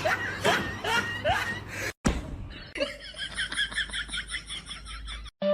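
A person laughing. After a sudden cut comes a fast run of short, high, repeated chirps, about six a second.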